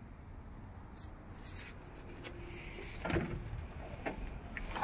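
A few faint clicks and knocks of a hand working the rear liftgate handle and latch of a Ford Escape, over a low steady hiss.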